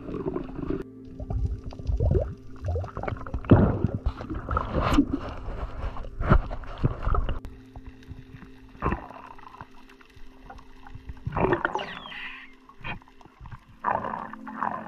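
Underwater sound picked up through an action camera's waterproof housing: irregular gurgling and sloshing of water against it, over a faint steady hum.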